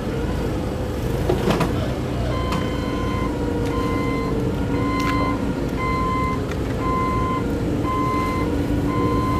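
Forklift's reversing alarm beeping about once a second, starting about two seconds in, over the steady running of its engine.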